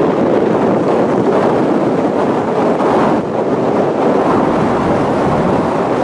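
Strong wind blowing across the microphone over storm surf breaking on the shore: a loud, steady rushing noise.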